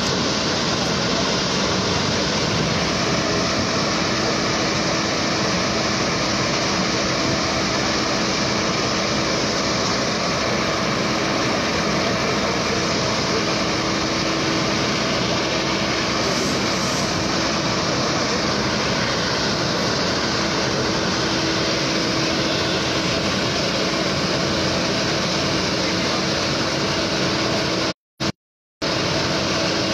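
Fire engines running steadily with a constant droning hum, under an even rushing noise. The sound cuts out briefly near the end.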